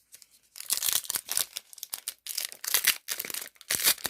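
Trading-card pack wrapper crinkling and tearing as it is handled and ripped open, starting about half a second in in a run of irregular crackles.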